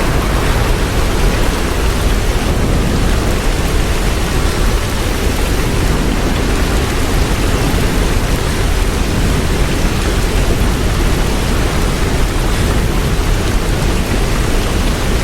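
Hurricane wind and heavy rain: a loud, steady, even rush of noise, heaviest in the low end.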